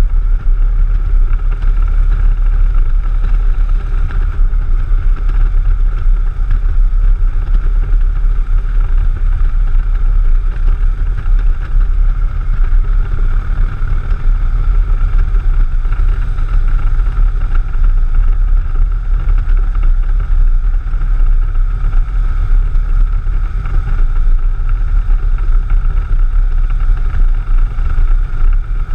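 Touring motorcycle cruising at steady road speed: a constant low rumble of engine and wind buffeting the bike-mounted camera's microphone.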